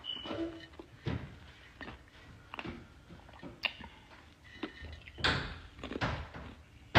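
Scattered knocks and bumps in a room, with a louder thump about five seconds in.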